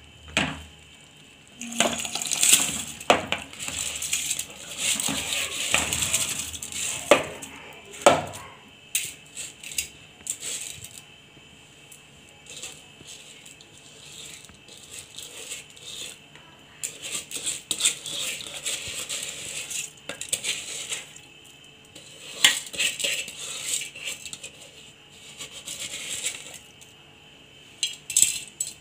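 Dry rice being poured into a pressure cooker of wet masala, the grains rattling and clinking against the cup and the metal pot in several stretches, with a few sharp clicks of metal utensils.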